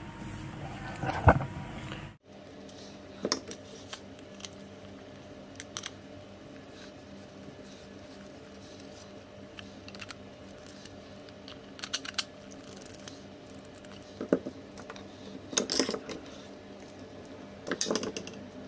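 Small metal hardware and tools clinking and clicking in hand as a scooter mudguard is fitted on a long bolt: scattered light clinks, with a cluster near the end, over a faint steady hum.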